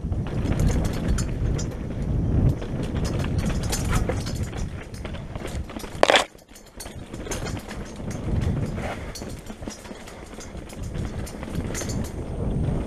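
Mountain bike rolling fast down a rocky dirt trail: tyres grinding over dirt and stones, and the bike clattering over bumps in many short knocks.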